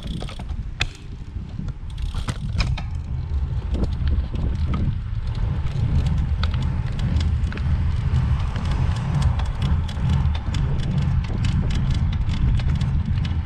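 Bicycle being ridden, with a steady low rumble and many short sharp clicks and creaks from the bike. The creak is still there with the original Fulcrum wheels fitted, so the wheels are not its cause.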